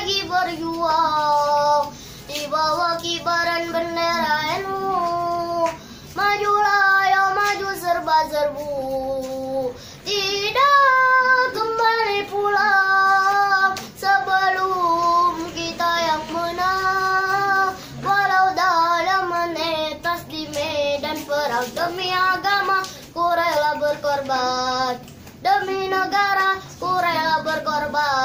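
A boy singing a sholawat (Islamic devotional song) solo with no accompaniment, in phrases a few seconds long with wavering, ornamented held notes and short breaks between them.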